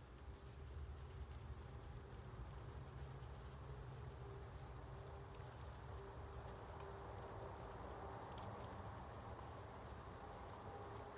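Faint outdoor ambience: a low steady rumble with a thin, high, steady tone that comes and goes.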